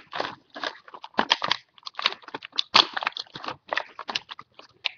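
Plastic and paper toy packaging crinkling and rustling as it is handled and pulled open, in quick irregular crackles.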